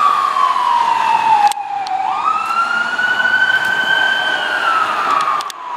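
A fire rescue truck's electronic siren on wail. The tone sweeps slowly down for about two seconds, jumps back up, climbs slowly, then starts falling again near the end.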